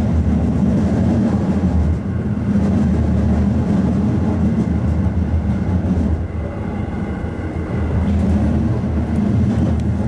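JR Nara Line electric train running along the track, heard from inside the train: a steady low rumble of running noise that eases slightly about two seconds in and again for a while past the middle.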